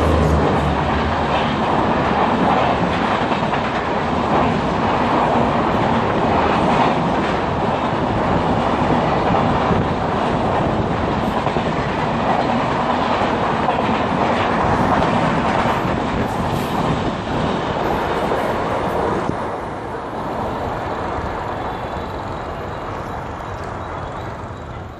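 Passenger express coaches rushing past at speed: a loud, steady rush of wheel and rail noise with clickety-clack over the rail joints. The noise drops somewhat about 19 seconds in.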